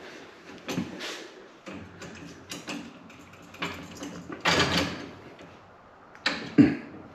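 Handling noises of parts or tools being moved: scattered clicks and knocks, a brief scrape about four and a half seconds in, and two sharp knocks near the end, the second with a low thud.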